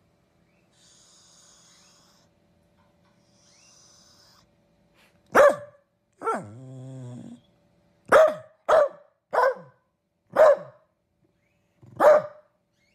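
Dachshund barking in single sharp barks, seven in all. The second bark trails off into a low, drawn-out grumble.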